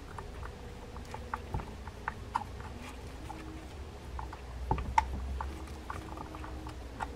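Flathead screwdriver driving small screws into a Penn Formula 15LD lever drag fishing reel: scattered, irregular small ticks and scrapes as the blade turns in the screw heads.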